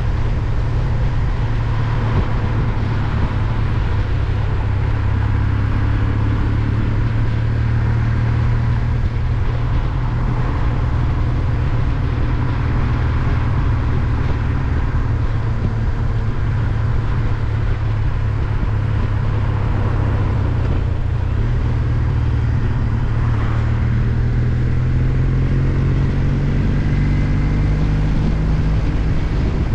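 Kawasaki W800's air-cooled parallel-twin engine running steadily under way, with wind noise muffled by a foam wind muff over the microphones; near the end the engine note rises as the bike accelerates.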